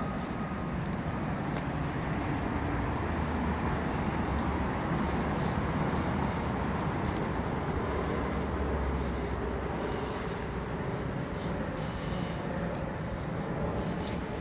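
Steady outdoor vehicle rumble, an even noise with a deeper low rumble that swells between about three and ten seconds in.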